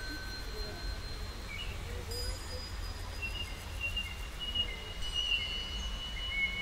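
Outdoor street ambience: a steady low rumble with faint, high bird chirps and thin whistles over it.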